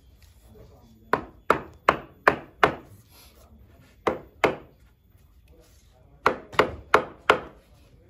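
Hammer blows on wooden wedges driven under a large teak stump on a sawmill carriage to steady and level it: five quick strikes, then two, then four more.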